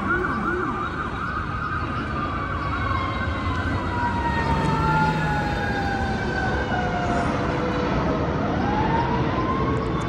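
Ambulance siren: a fast yelp near the start, then a slow rising and falling wail, over the steady noise of street traffic.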